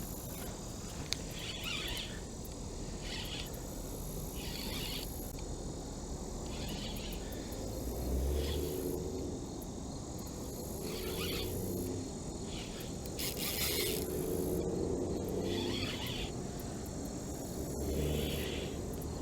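Summer insects calling: a steady high buzz, with a rasping call that repeats every second or two. Some low rumbling comes in the second half.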